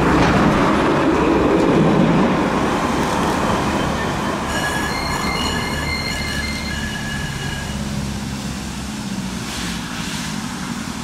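Alstom Citadis tram running past, its rumble fading as it moves away. About four and a half seconds in, a high, several-toned squeal of steel wheels on the rails sets in and lasts about three seconds.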